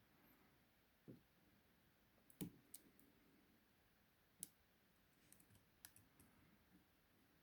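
Faint, irregular clicking of a short hook pick and tension wrench working the pins inside a 40mm laminated padlock, about a dozen small metallic clicks spaced unevenly.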